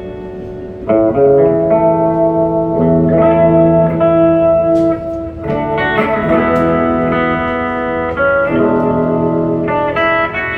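Solo electric guitar played through an amplifier, instrumental with no singing: chords struck and left to ring, changing every couple of seconds.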